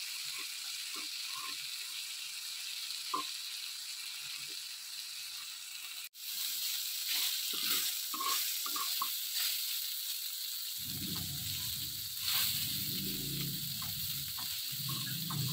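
Chicken pieces sizzling on a hot iron tawa, with light scrapes and taps as a metal spatula and fork chop them. A low rumble joins in about two-thirds of the way through.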